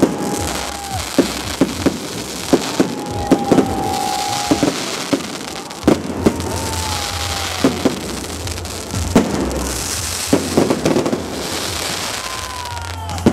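Aerial fireworks bursting overhead: irregular sharp bangs over a steady crackle. Three times a long whistling tone sounds for a few seconds, falling slightly in pitch.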